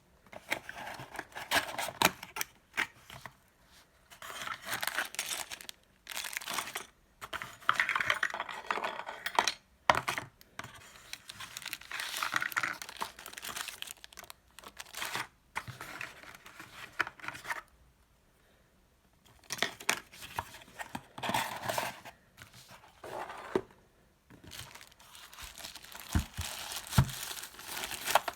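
Packaging being unwrapped and handled: crinkling and tearing of wrapping material in irregular bursts, with a short pause past the middle.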